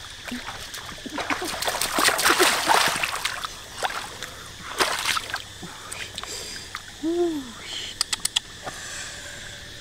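Water splashing in uneven bursts, heaviest in the first few seconds and again about halfway. About seven seconds in there is a short voiced call that rises and falls, followed by a few sharp clicks.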